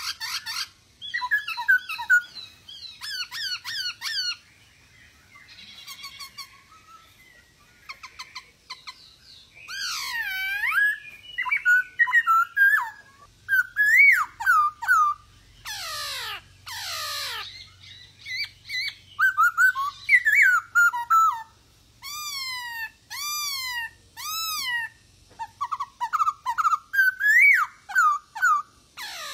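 Black-throated laughingthrush (poksay hongkong) singing: a long, varied run of loud whistled phrases of rising and falling notes. Fast repeated note series are mixed with a few harsh chattering calls.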